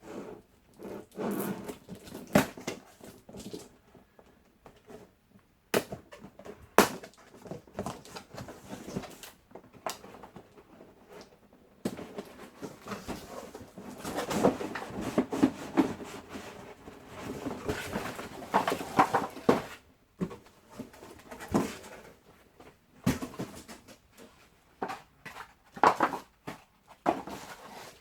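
Box and packaging being handled during unpacking: scattered sharp knocks and clicks, with stretches of rustling.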